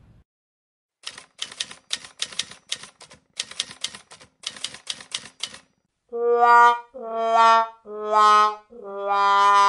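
Typewriter keys clacking in quick, irregular strokes for about four and a half seconds. Then a comic 'wah wah wah wahhh' brass sting follows: four notes stepping down in pitch, the last one held long and wavering.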